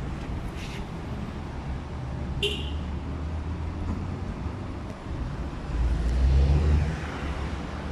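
Low, steady rumble of road traffic, swelling louder for about a second near the end, with one short high chirp about two and a half seconds in.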